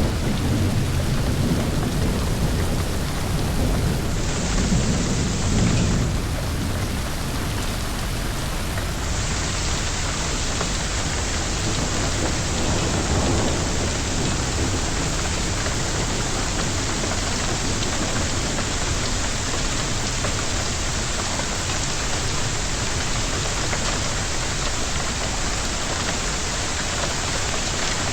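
Heavy rain falling steadily in a thunderstorm, with a low rumble of thunder through the first six seconds or so.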